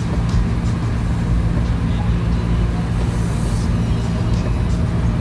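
Car interior noise while driving on a wet road in the rain: a steady low engine and road hum. A brief hiss comes about three seconds in.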